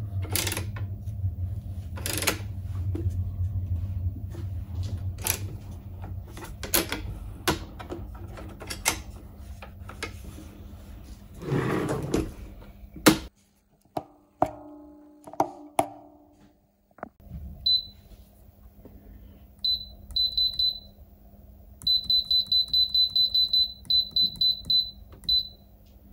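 Clicks and knocks from the MPM MGR-11M contact grill's lid and adjustable hinge bracket as it is moved, over a low hum. After a sudden cut, the grill's electronic control panel beeps at a high pitch as its buttons and knobs are pressed: one beep first, then a quick run of beeps near the end.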